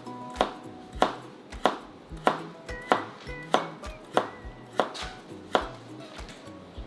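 Chef's knife slicing a carrot on a cutting board, the blade knocking on the board in an even rhythm of about three cuts every two seconds.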